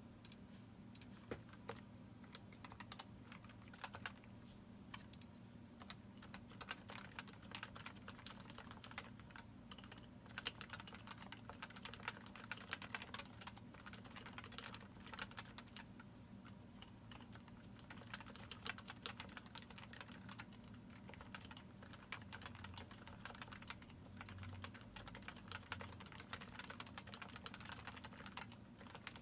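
Typing on a Leopold FC660C keyboard with Topre electrostatic capacitive switches in a variable-weight setup, stock unlubricated sliders and stabilizers, and PBT keycaps. A run of rapid, irregular keystrokes, a few scattered presses at first, then continuous typing.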